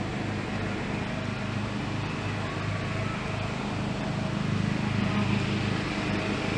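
Steady low engine hum, rising slightly about four seconds in.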